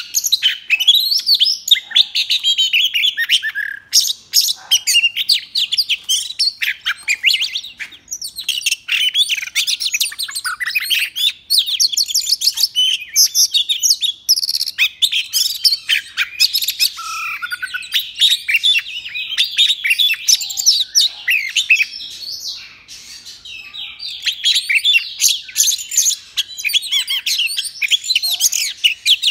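Caged oriental magpie-robin in full competition song: a long, rapid run of varied high whistles, trills and chirps, almost without a break, easing briefly about three-quarters of the way through.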